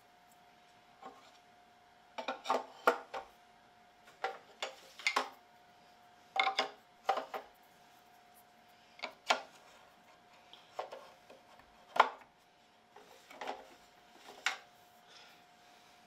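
Plastic and metal parts of an Ultimate Support Apex AX-48 Pro keyboard stand clicking and knocking as its tri-bar arms are slotted into the brackets on the column: about a dozen sharp knocks at irregular intervals, some in quick clusters, over a faint steady tone.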